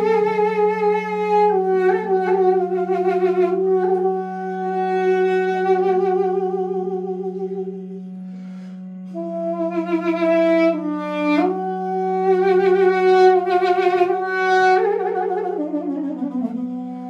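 Armenian duduk playing a slow, ornamented melody with wide vibrato over a steady low drone; a first phrase, a short breath about halfway, then a second phrase that ends on a descending run.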